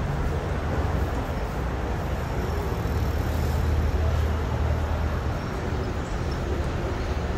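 City street traffic: a steady low rumble of passing vehicles that swells a little around the middle.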